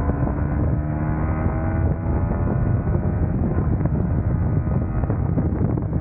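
Yamaha MT motorcycle engine running at a steady cruising speed on the highway, its engine note clearest in the first second, then partly buried under heavy wind noise on the microphone.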